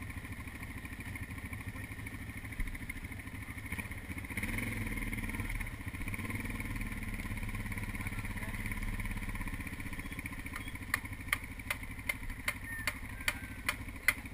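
Dirt bike engine idling with a steady low beat, a little louder for a few seconds in the middle. Near the end a regular sharp clicking starts, about two or three clicks a second.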